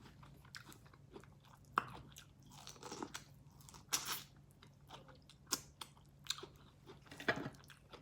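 Close-up eating sounds of a seafood boil: crab shell cracking and crunching between scattered wet chewing and sucking, in irregular sharp snaps, the loudest about four seconds in and again near the end.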